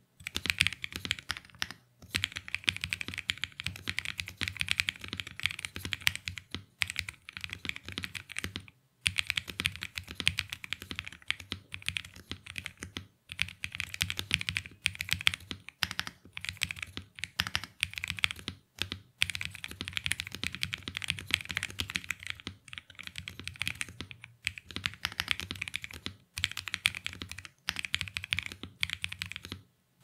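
Fast typing on a LEOBOG K81 mechanical keyboard fitted with stock LEOBOG Ice Crystal linear switches and PBT keycaps, gasket-mounted with a polycarbonate plate and Poron foam dampening. A steady stream of keystrokes with a few brief pauses.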